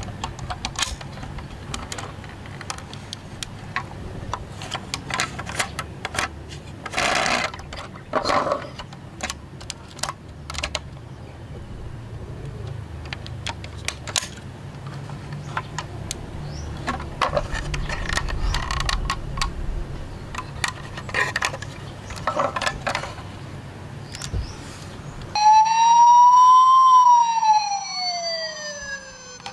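Light clicks and taps of a die-cast toy truck's cab doors being opened and shut by hand. About four seconds from the end, a toy ambulance's electronic siren starts suddenly and loudly, wailing up and down in pitch.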